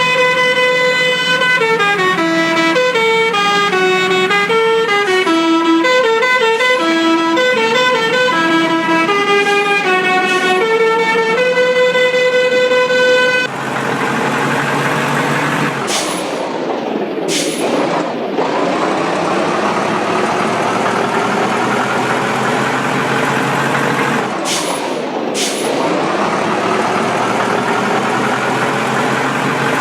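Indonesian 'telolet' Basuri musical horn playing a tune of stepped notes for about 13 seconds, then cutting off abruptly. A vehicle engine noise follows, swelling and sweeping, with two brief pairs of dips.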